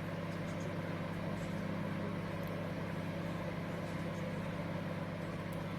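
Cello 800-watt microwave oven running, a steady low hum from its transformer and fan while it heats a dish of water.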